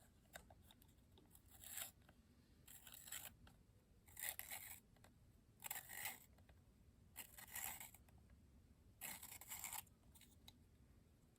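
Dixon Ticonderoga wooden pencil being twisted in a handheld Staedtler pencil sharpener, the blade shaving the wood in six faint scraping strokes about a second and a half apart.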